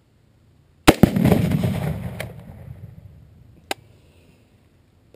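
A sharp crack followed at once by a big boom that rolls and fades over about two seconds: a rifle shot setting off a Tannerite exploding target. A single sharp crack comes later, near the end.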